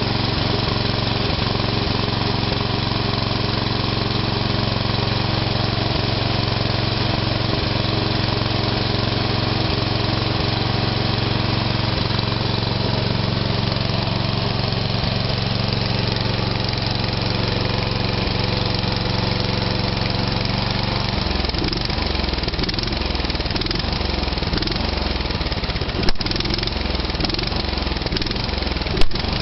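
Westwood T1300 ride-on mower's Briggs & Stratton petrol engine running steadily just after a cold start on full choke. About two-thirds of the way through, its running turns uneven, and there are two sharp knocks near the end.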